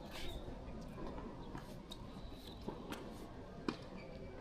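Faint court-play sounds: scattered sharp clicks and a few short high squeaks, over a steady hall hum.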